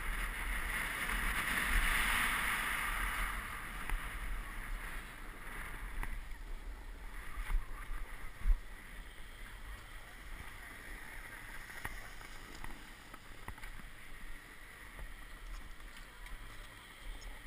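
Snowboard sliding and scraping over packed snow: a steady hiss for the first few seconds, then quieter, uneven scraping with a few sharp knocks as the board slows.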